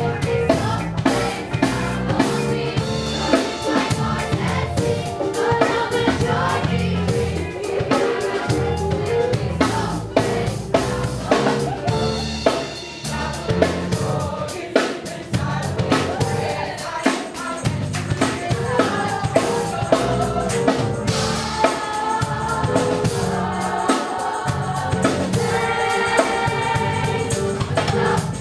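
A choir singing a gospel-style worship song, backed by a drum kit with a steady beat and a low accompaniment, played live.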